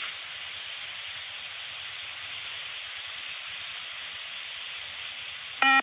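Steady hiss from the beep-test audio recording between shuttles. Right at the end comes the test's short electronic beep, the signal that marks the end of a shuttle run.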